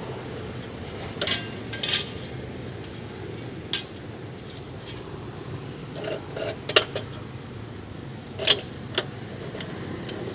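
Metal clanks and clinks of steel stock being handled and set in a cut-off saw's steel vise clamp: a handful of separate sharp knocks scattered through, the loudest two in the second half.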